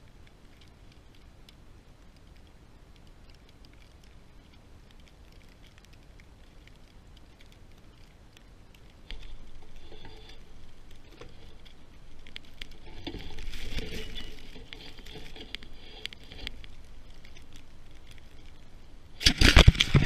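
Faint steady hiss, then from about nine seconds in, irregular crunching and rustling in deep snow that grows louder. Loud knocks and rustling near the end as the camera is picked up and handled.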